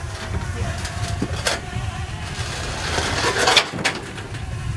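Metal gangway being shifted onto a floating dock: a sharp clank about a second and a half in, then a scraping rasp around three seconds in that ends in a couple of clanks, over a steady low rumble.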